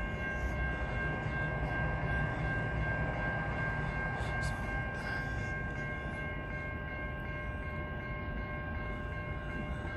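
A steady hum of several high, unchanging tones over a low rumble.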